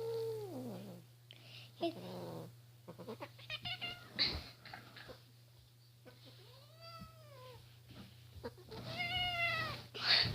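Kitten meowing about four times, each a drawn-out call that rises then falls in pitch, with a few light clicks in between.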